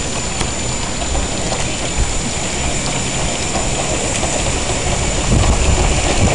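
Miniature 7¼-inch gauge steam locomotive working its train of passenger carriages along the track, a steady noisy mix of steam and running gear, growing a little louder after about five seconds.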